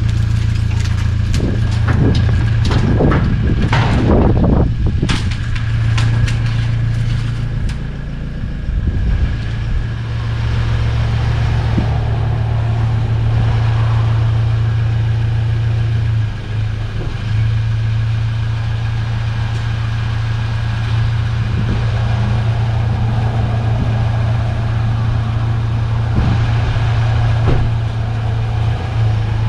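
Car engine idling steadily, with a run of clattering knocks and clicks over the first several seconds.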